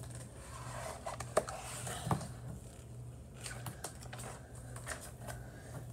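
A magazine being handled and its pages turned: light paper rustling with scattered soft clicks and taps, over a steady low hum.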